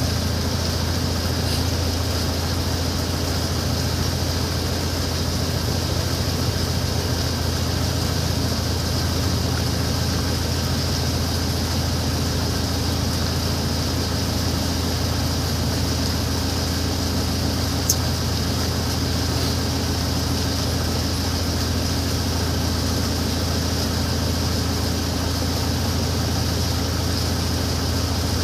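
Motorboat engine running at a steady, unchanging pitch, heard from aboard the boat, with one brief click about eighteen seconds in.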